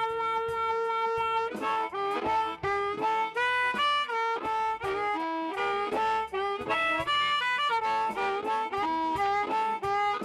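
Blues harmonica played live: one long held note for about a second and a half, then quick runs of changing notes.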